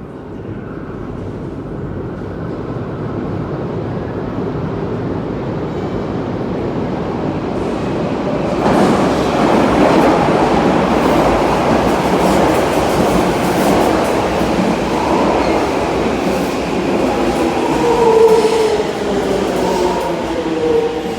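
Toei Asakusa Line 5300-series subway train running. Its noise builds steadily and jumps louder about nine seconds in. A few steady tones sound over it in the last few seconds.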